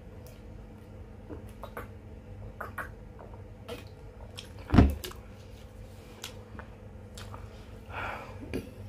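A person eating close to the microphone: soft chewing and scattered small clicks, with one louder knock about five seconds in, over a faint steady hum.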